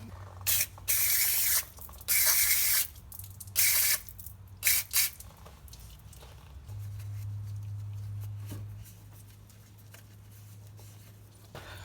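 Aerosol can of brake cleaner sprayed in several short hissing bursts, each up to about a second long. A low steady hum follows for about two seconds.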